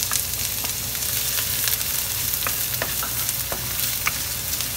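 Diced onion sizzling in hot oil in a stainless-steel wok as it starts to sauté, stirred with a wooden spatula. A steady hiss is broken by scattered short crackles.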